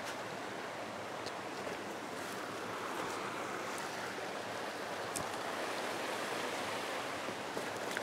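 Woodland stream rushing over rocks and small waterfalls, a steady even wash of water noise, with a few faint clicks.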